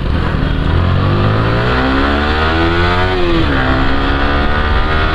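Motorcycle engine accelerating: its pitch rises for about three seconds, drops sharply at a gear change about three and a half seconds in, then holds steady.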